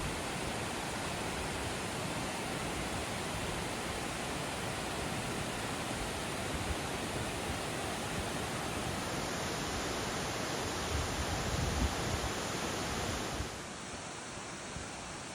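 Steady rushing of flowing water, a river or waterfall, which drops to a lower level about three-quarters of the way through.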